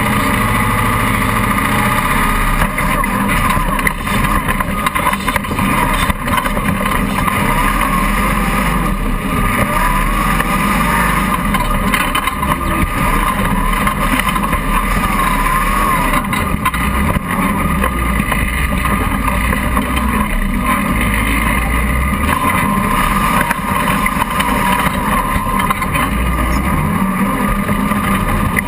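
Off-road 4x4 buggy's engine running loud and continuously, its pitch rising and falling, picked up by a camera mounted on the vehicle.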